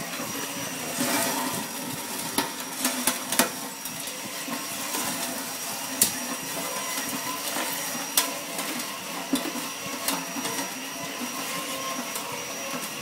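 Hand drill motor running steadily, turning a screw auger that carries metal swarf up a steel trough, with the chips scraping and clinking against the steel. Several sharp clicks, the loudest about six seconds in.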